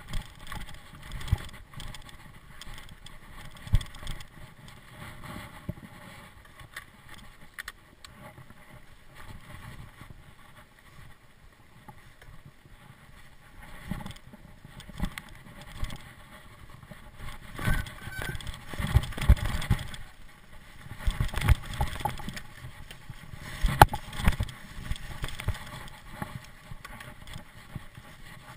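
Mountain bike ridden down a dirt forest singletrack, heard from a camera on the bike: a rushing rattle of tyres and frame with irregular knocks and clunks over bumps, busier and louder in the second half.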